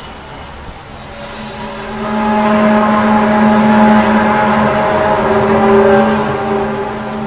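A deep, steady horn-like drone with several overtones, swelling up about two seconds in, holding, then easing off near the end: one of the unexplained 'strange sounds' heard in the sky, which some liken to trumpets.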